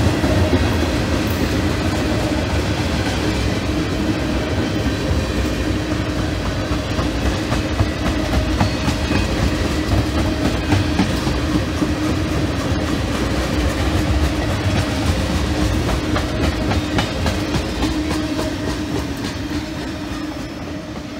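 Tank cars of a long CSX freight train rolling past, with steel wheels clicking over the rail joints in a steady clatter. It fades over the last few seconds as the end of the train moves away.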